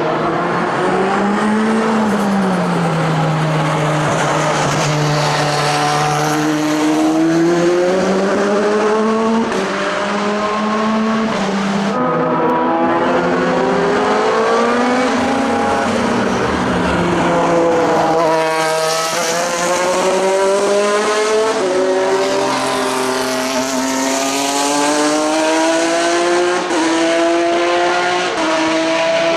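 Several endurance racing cars' engines at speed, their notes overlapping. The pitch climbs and drops back again and again as the cars accelerate up through the gears.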